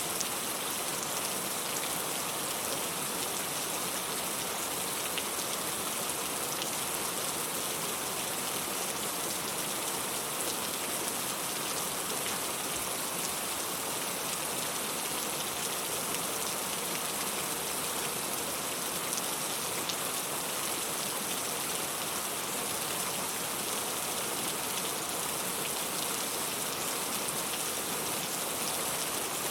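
Steady rain falling and pattering on surfaces, an even, unbroken hiss with scattered faint drop ticks.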